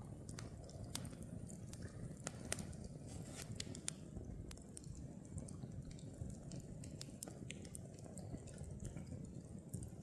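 Campfire crackling: faint, irregular pops and snaps of burning wood over a low steady rumble.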